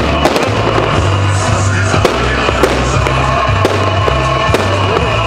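Loud music with a heavy, stepping bass line, over which fireworks go off in several sharp bangs at irregular intervals.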